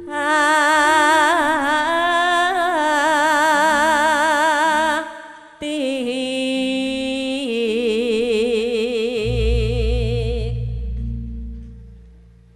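A sinden, a Javanese female singer, sings two long drawn-out phrases with wide vibrato over gamelan accompaniment whose lower notes move in steps. A deep low sound swells in about nine seconds in, and the voice fades out near the end.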